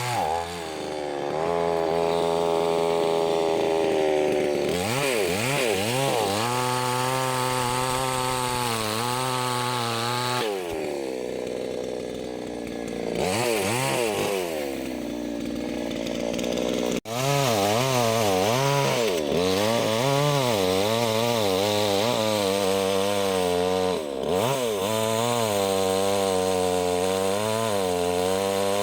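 Small two-stroke chainsaw running and cutting into a fallen tree, its engine pitch rising and falling as it labours in the wood, dropping back to a lower steady note now and then. The sound breaks off for an instant about two-thirds of the way through.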